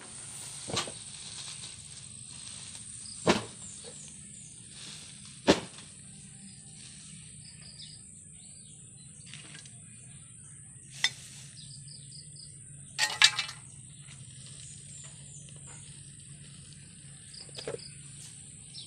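A steady high-pitched insect drone, broken by a handful of sharp knocks and taps of handling work, with a short burst of clatters about 13 seconds in.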